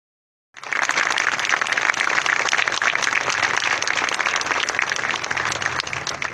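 Audience applauding, cutting in suddenly about half a second in and easing off near the end.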